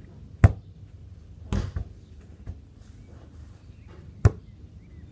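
A football is kicked hard twice, about four seconds apart, each kick a sharp, short smack. About a second after the first kick comes a duller, drawn-out impact as the ball hits the goal or its net.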